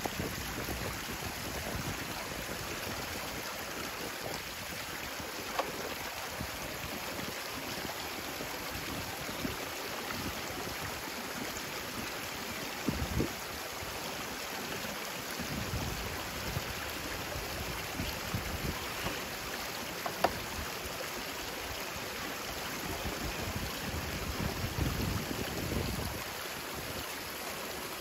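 Shallow rocky creek running steadily over stones. A few sharp clicks stand out, the loudest about six and twenty seconds in, with some brief low rumbles between them.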